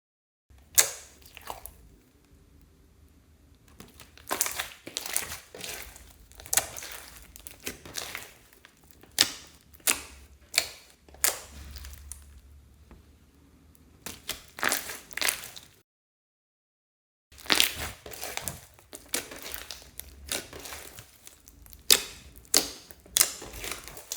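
Slime being squeezed and kneaded by hand, giving irregular sharp pops and crackles. There is a short dead-silent gap about two thirds of the way through.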